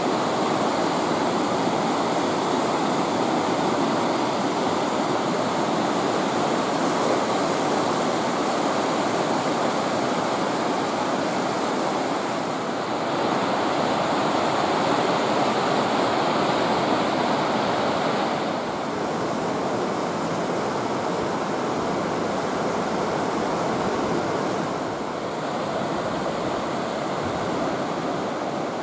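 Whitewater of the Katun River rushing through the Teldykpen rapids, a steady loud wash of water that shifts slightly in level a few times.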